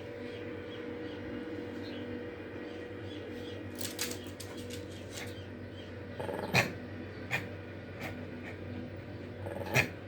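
Pet dog making a handful of short, sharp sounds in the second half, over a steady low hum.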